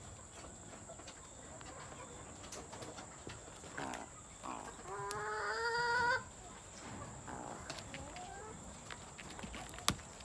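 Male Sri Lanka junglefowl crowing: two short notes, then a longer, slightly rising note of about a second. A single sharp click near the end.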